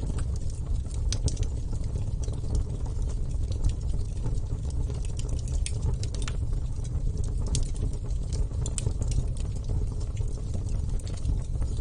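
Wood fire burning: a steady low rumble of flames with frequent, irregular sharp crackles and pops from the burning wood.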